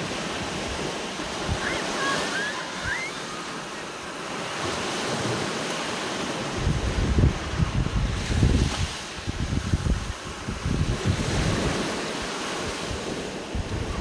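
Small surf breaking and washing up a sandy beach, rising and falling as each wave comes in. From about six to twelve seconds in, wind buffets the microphone with low rumbling gusts.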